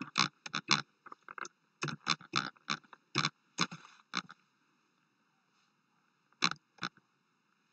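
Computer keyboard keys clicking as a title is typed: a quick, irregular run of keystrokes for about four seconds, a pause, then two more taps near the end.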